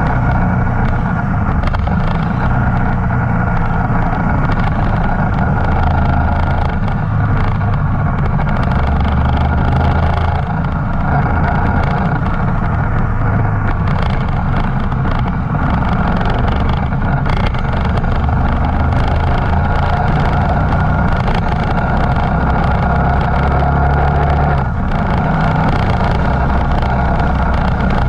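Two-cylinder motorcycle engine running steadily at a fairly even pitch.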